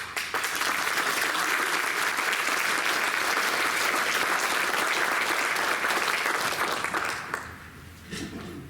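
Audience applause in a council chamber, starting right after a congratulation and dying away about seven seconds in.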